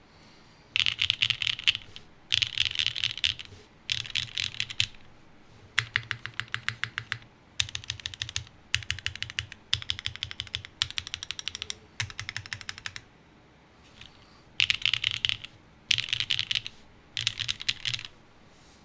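Typing on a TGR Tomo mechanical keyboard with lubed, broken-in NovelKeys Cream linear switches in an aluminium plate and GMK keycaps: quick runs of keystrokes with short pauses between them, and a pause of about a second and a half shortly after the middle.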